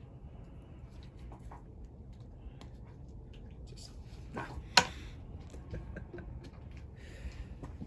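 Scattered small clicks and taps of gear being handled at a shooting bench, with one sharp crack about five seconds in that is the loudest sound.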